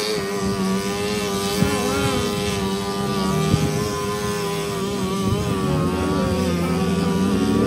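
A small engine running steadily at speed, its pitch wavering slightly now and then.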